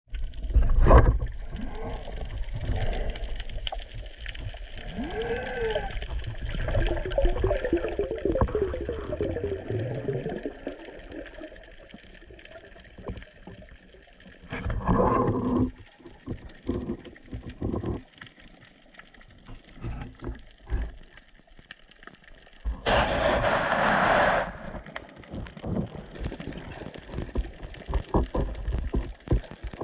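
Muffled underwater sound picked up by an action camera in its housing during a freedive descent: a low, uneven water rumble, with a wavering hum a few seconds in and a few seconds of louder rushing noise about halfway and again about three quarters of the way through.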